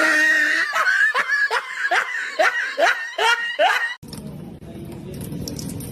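A person laughing in a quick series of high, rising squeals, which stops abruptly about four seconds in and gives way to a steady low background noise.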